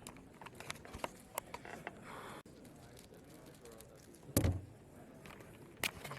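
Scattered light clicks over a low room murmur, with one loud thud about four seconds in.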